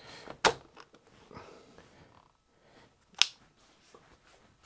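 Two sharp clicks about three seconds apart, with faint rustling between, from handling a flat chisel and an SDS drill, the chisel being readied to fit in the chuck.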